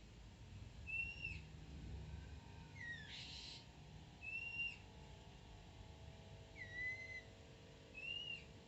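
Oriental magpie-robin (kacer) singing: about six short, clear whistled notes, spaced one to two seconds apart, some sliding down in pitch, with one short harsh note about three seconds in.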